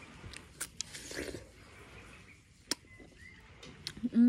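Close-up sounds of a person eating fresh watermelon: a short bite about a second in, then chewing with scattered wet mouth clicks and smacks. A hummed "mmm" starts right at the end.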